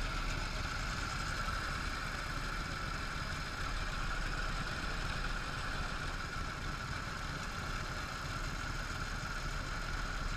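Vintage Indian motorcycle engines idling steadily, with no revving.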